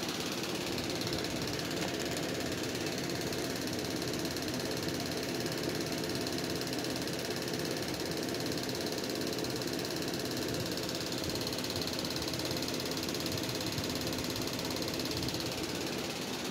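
A steady mechanical hum, unchanging throughout, with a faint high whine running through it.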